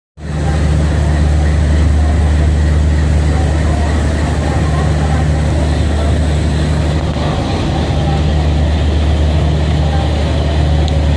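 WDM3D diesel locomotive's 16-cylinder ALCO engine running loud and steady with a deep hum as the locomotive moves slowly past close by.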